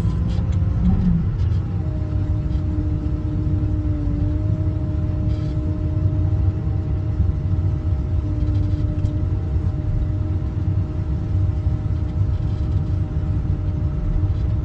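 Wheel loader's diesel engine running at steady revs, heard from inside the cab as a low rumble, with a steady whine that sets in about two seconds in.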